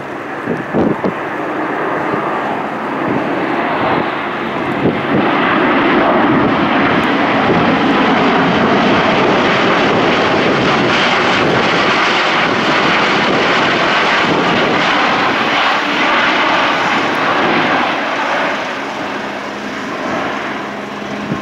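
Airbus A400M's four turboprop engines and eight-bladed propellers growing louder as it passes close overhead. The sound is loudest in the middle and eases off as the aircraft climbs away.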